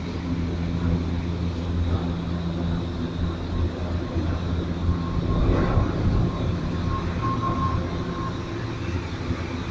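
Steady low hum and rumble of a moving cable car cabin, heard from inside, with a faint thin whine for a few seconds in the middle.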